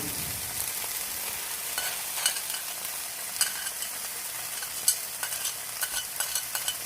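Chicken breasts frying in olive oil, a steady sizzle, with sharp clicks and taps of a utensil against the cookware starting about two seconds in.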